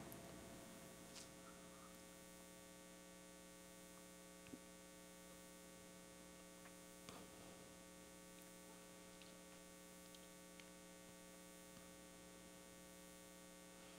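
Near silence: a steady electrical hum, with a couple of faint small clicks about four and seven seconds in.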